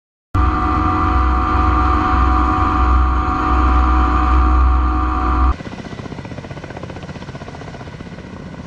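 Ka-52 Alligator attack helicopter heard from on board: a loud, steady turbine and gearbox whine over a heavy low rumble. About five seconds in it gives way abruptly to the quieter, fast, even chop of the Ka-52's coaxial rotors heard from outside.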